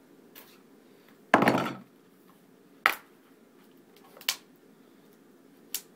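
Plastic shrink wrap being slit with a knife and pulled off a Blu-ray case: one loud crackling tear about a second and a half in, then a few short sharp clicks of plastic.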